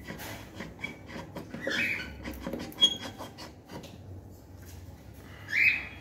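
Cockatiel hissing in the nest box, two short breathy hisses, amid clicks and a sharp knock from the nest box being handled.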